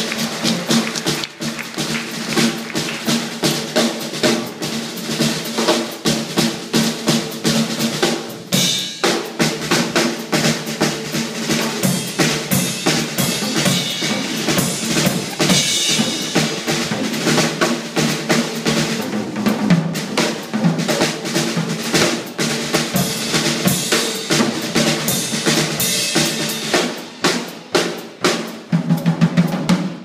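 Drum kit solo: fast, busy playing across snare, bass drum and cymbals, with a steady low tone held underneath.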